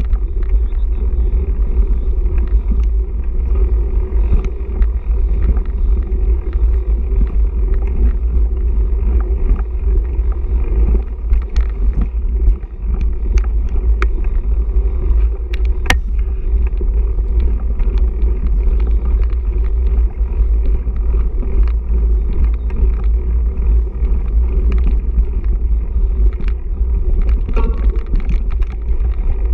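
Mountain bike riding fast down a dirt trail, heard on a mounted action camera: a steady heavy low rumble of wind and tyre noise on the microphone, with scattered sharp clicks and rattles from the bike over the rough ground, one sharper knock about halfway through.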